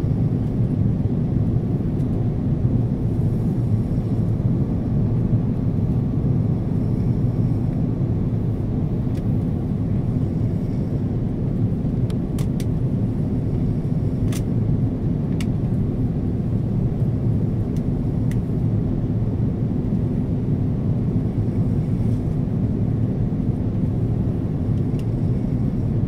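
Steady low rumble of jet engines and rushing air inside an airliner cabin on its descent to land. A few faint ticks come about halfway through.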